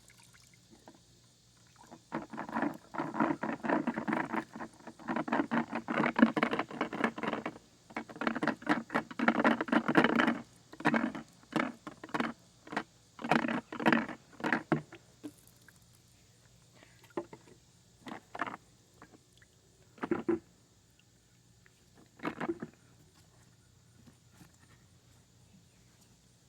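Lawn mower parts being washed by hand: quick runs of patter and rubbing in two long spells, then single strokes that thin out to a few isolated ones near the end.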